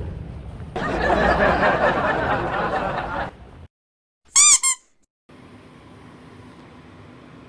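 A loud rushing noise for about two and a half seconds, then a brief silence and a cartoon-like sound effect: two quick squeaky chirps, each rising and falling in pitch, over the channel's logo card. After that comes faint, steady room sound.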